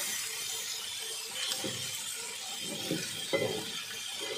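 Tilapia frying in margarine in a cast-iron pan, a steady sizzle, while a metal spatula scrapes and knocks against the pan a few times as the fish are turned.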